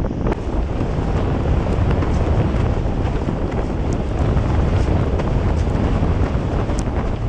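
Strong wind buffeting the microphone in a steady roar, with rushing water as a windsurf board sails over choppy lake water.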